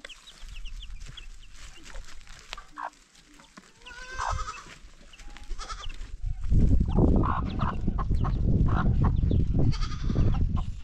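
Goats bleating, with short high chirps in the first few seconds. From about six seconds in, a loud low rumbling noise takes over.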